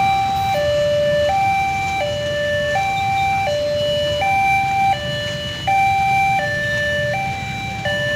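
Railway level-crossing warning alarm sounding: an electronic two-tone hi-lo signal that alternates evenly between a high and a low note, each held under a second, over a low background rumble. The alarm signals that a train is approaching and the crossing gates are closing.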